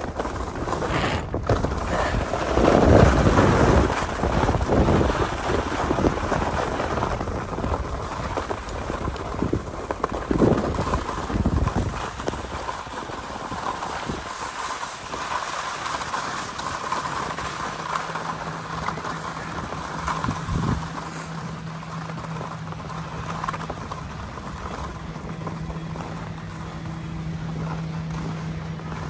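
Skis hissing and scraping over packed snow, with wind rushing on the microphone during the descent; the noise is roughest in the first half and eases as the skier slows. A steady low hum comes in during the second half.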